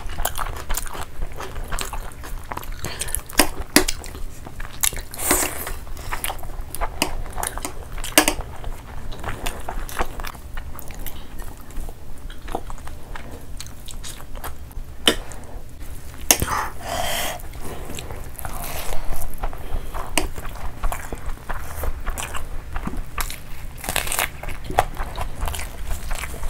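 Close-miked eating of rice and curry by hand: wet chewing, many sharp mouth clicks and lip smacks, and the sticky squelch of fingers working rice into gravy.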